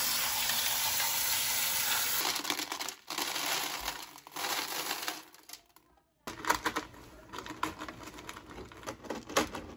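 Running tap water pouring onto aquarium gravel in a bowl for about the first two seconds, then, after a short break, the gravel stones clicking and rattling as a hand spreads them in the tank.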